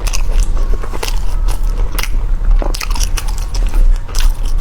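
A person chewing a mouthful of purple-rice bread with pork floss and cheese close to the microphone: irregular soft clicks and smacks. A steady low hum runs underneath.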